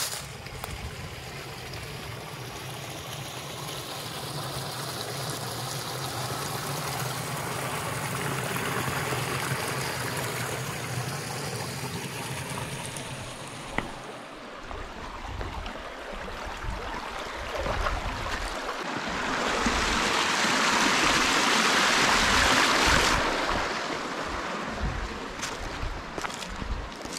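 Shallow rocky creek running and trickling over stones, swelling louder for a few seconds about two-thirds of the way through before easing off.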